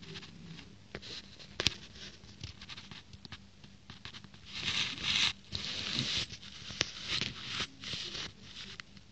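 Scraping and rustling right on a phone's microphone as a cat's fur and face brush against the phone, with scattered clicks and one sharp tap a little under two seconds in. The longest, loudest scraping comes in the second half.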